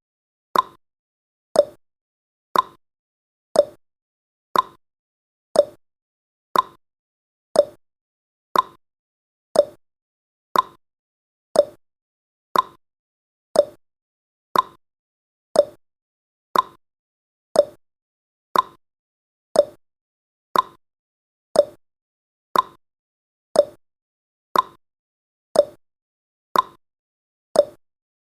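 A countdown timer's clock-tick sound effect, one short sharp tick every second.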